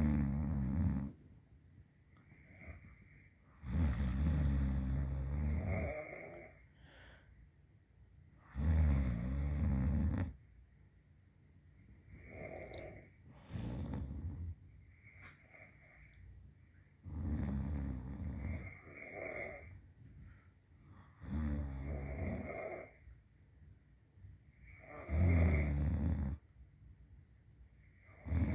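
Two people snoring in their sleep: loud, low snores come about every four seconds. In the middle there is a longer stretch with only a few softer snores.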